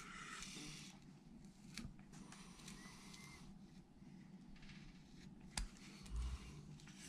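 Faint hand-carving sounds: a small wooden carving being turned and worked with a carving tool, with a few light clicks and a soft low thump about six seconds in.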